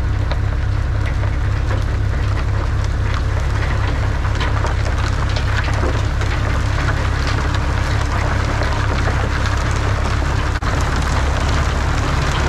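Van Dale silo unloader running: a steady machine hum from its augers and blower, with constant crackling and pattering of corn silage being pulled in and thrown out down the chute.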